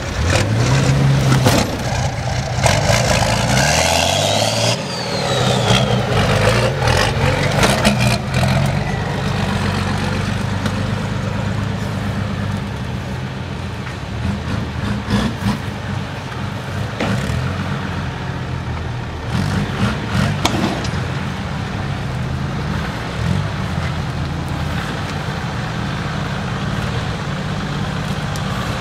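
Lifted 4x4's engine running at low revs with the throttle rising and falling as it crawls over rocky ground, with a few sharp knocks now and then.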